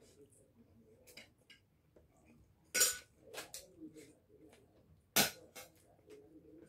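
Eating sounds from someone eating rice and dried fish by hand off a ceramic plate. It is mostly quiet, with two sharp clicks about three and five seconds in and faint small ticks between them.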